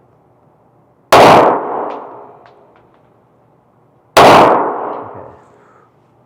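Two pistol shots about three seconds apart from a Ruger Mark IV .22 LR semi-automatic, each a sharp crack with a long echoing tail, typical of an indoor range. A few faint ticks follow the first shot.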